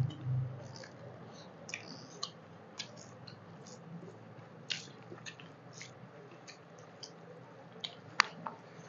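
Close-miked eating of rice and chicken curry by hand: wet chewing and lip smacks, with scattered short clicks and squishes as fingers mix rice on a banana leaf. One sharper click stands out near the end.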